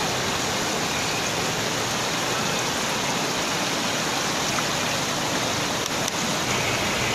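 Floodwater of a fast river rushing steadily through and over a large bamboo fish trap, an even, unbroken water noise.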